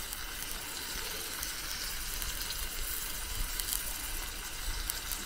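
Zucchini sizzling in a frying pan over a lit mangal: a steady hiss with faint small crackles.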